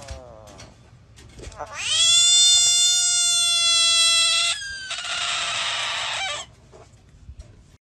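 A bullfrog screaming with its mouth open, the cry it gives when alarmed. It is one loud, high call that rises in pitch, holds steady for a couple of seconds, then turns rough and rasping for another second and a half before stopping.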